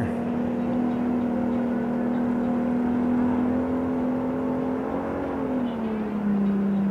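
Outboard motor running steadily with the boat held at the dock, its pitch dropping about five and a half seconds in as it is throttled back.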